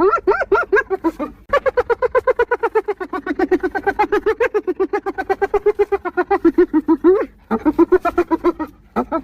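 Spotted hyena laughing: a rapid, even string of high-pitched yelps, about eight a second, in three bouts, the middle one lasting about six seconds.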